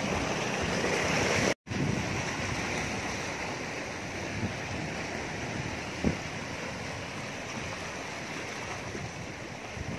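Sea surf washing against shoreline rocks, with wind on the microphone. The sound drops out for an instant about a second and a half in, and there is a soft knock about six seconds in.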